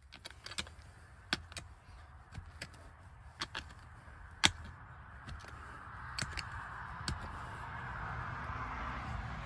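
Irregular sharp knocks and scrapes of a shovel digging in soil around a pipe, the loudest strike about four and a half seconds in. A steady hiss grows louder through the second half.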